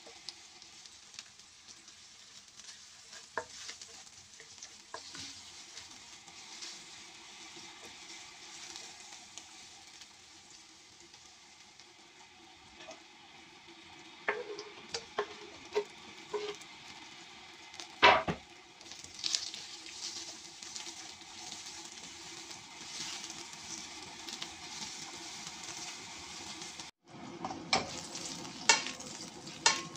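Ginger and garlic sizzling in hot oil in a nonstick wok while a spatula stirs and scrapes them. Scattered sharp knocks of the spatula against the pan, the loudest about halfway through, and a burst of clatter near the end.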